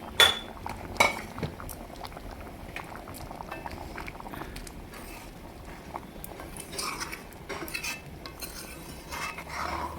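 A metal utensil clinking and scraping in a cooking pot of simmering curry, with two sharp knocks in the first second and lighter clinks after.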